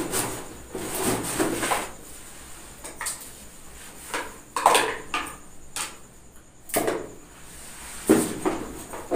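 Irregular knocks, clatter and rustling from objects being handled, with a few louder short sounds about halfway through and near the end.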